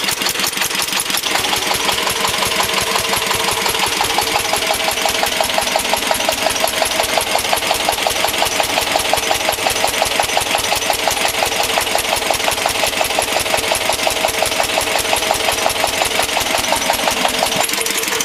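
Lister-style slow-speed diesel generator engine running on vegetable oil under load, with a loud, even chuffing beat. It is noisy because it has no intake silencer and very little exhaust silencing. A steady whine joins about a second in and stops near the end.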